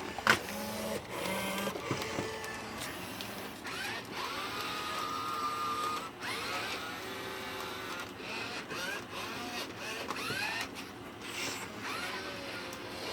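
Robosapien V2 robot's small electric gear motors whirring as it moves its body and limbs, in a series of short runs, each starting with a rising whine. There is a sharp click about a quarter-second in.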